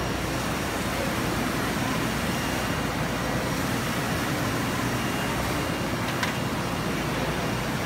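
Gandinnovations Jeti 2030-48 UV flatbed printer running while it prints, its carriage sweeping across the bed: a steady, even machine noise, with one faint click about six seconds in.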